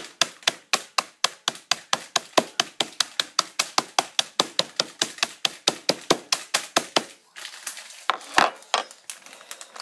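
Rapid, even knocking in the kitchen, about five sharp strikes a second, which stops about seven seconds in and gives way to the crinkling of a plastic cookie packet.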